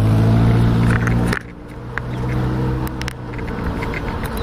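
A motor vehicle's engine running close by with a steady low hum that cuts off sharply about a second and a half in. After it comes steady road and wind noise with a quick, regular light ticking.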